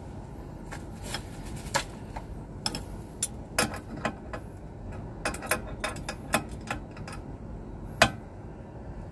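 Irregular sharp metallic clicks and taps as a hand works the fittings on an aircraft crew oxygen cylinder's pressure regulator, the loudest about eight seconds in, over a steady low rumble.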